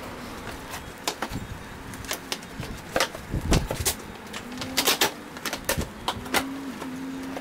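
Hard plastic side panel of an ATV being pushed and snapped back into place by hand: an irregular run of sharp plastic clicks, taps and rattles, with a heavier thump about halfway through.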